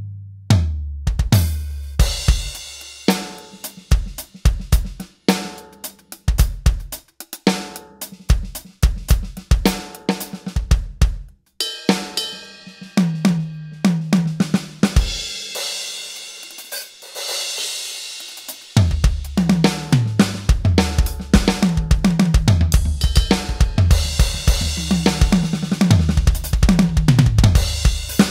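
Roland VAD706 electronic drum kit being played: sampled kick, snare, hi-hat and cymbals in a beat with fills. About fifteen seconds in the playing stops for roughly three seconds while a cymbal rings out. Then the beat comes back in, busier and with more cymbal.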